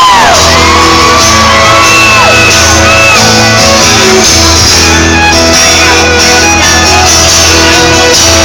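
Live country band playing an instrumental stretch between verses, with fans in the crowd shouting and whooping over the music.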